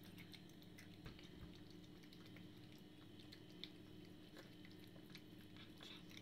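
Faint sounds of a cat eating from a bowl: small, irregular chewing clicks and smacks over a low steady hum.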